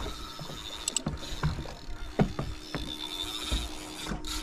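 Water lapping against a boat's hull, with scattered knocks and clicks. A low steady hum comes in about halfway through.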